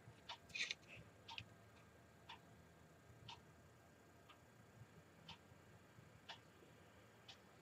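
Faint ticking of a clock, one tick a second, with a brief louder clicking scratch about half a second in.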